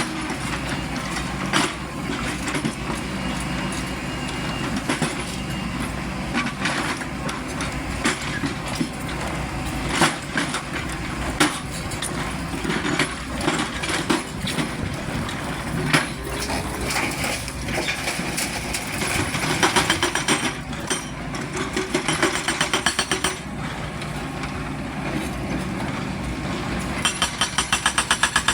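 XCMG 210-class crawler excavator's diesel engine running under load during loading work, with scattered sharp clanks and knocks from the bucket and boom. Near the end a fast, even rattling rhythm sets in.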